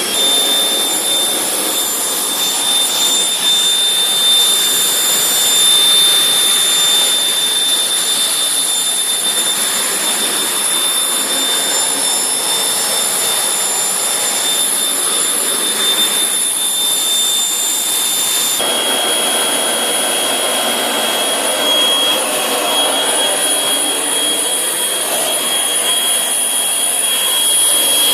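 Industrial vacuum driven by a 7.5 hp three-phase electric motor, running at speed: a loud, steady high whine over rushing air. About two-thirds of the way through, the whine drops suddenly a little in pitch and the rushing turns rougher.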